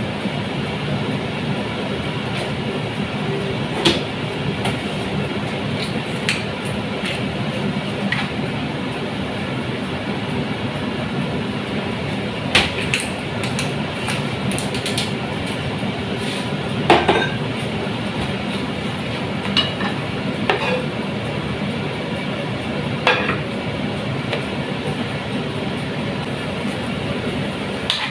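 Onions frying in oil in a nonstick frying pan: a steady sizzle with occasional pops. Near the end a wooden spoon starts stirring and knocking in the pan.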